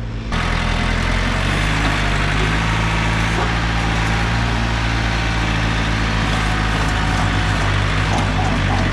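Heavy machinery engine running steadily at a constant speed, cutting in sharply just after the start.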